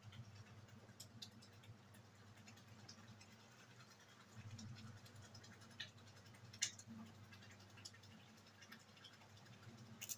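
Near silence: a faint low hum from a pot of water heating on a gas burner, with scattered light ticks and one sharper click about two-thirds of the way in.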